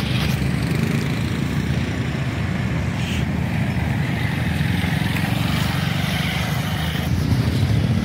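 Road traffic: motorcycles passing close by, heard as a steady low rumble.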